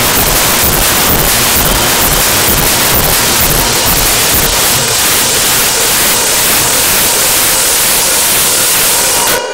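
Loud psytrance dance music from the festival sound system, overloading the camera microphone so it comes through as a dense, distorted wash with a steady beat. It drops away abruptly at the very end.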